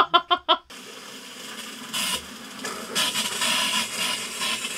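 Compressed air forcing leftover water out of PEX water lines through a flush valve, a steady hiss and spray into a plastic bucket that grows louder about two and three seconds in. A short burst of laughter opens it.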